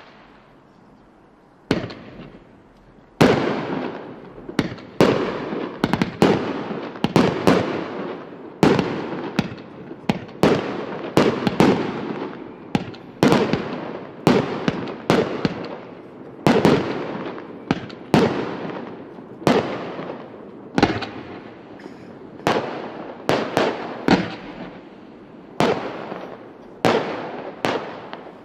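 A 418-shot fireworks battery firing its shots in steady succession, about one bang a second, each bang trailing off before the next. It is quiet for the first second and a half or so before the firing resumes.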